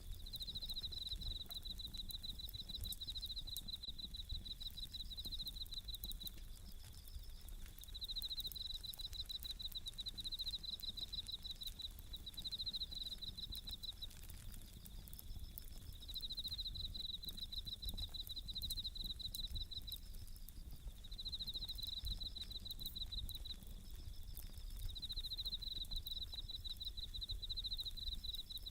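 Bell crickets (suzumushi) singing in high, ringing trilled phrases repeated in runs with short gaps, over the light crackle and popping of a wood campfire.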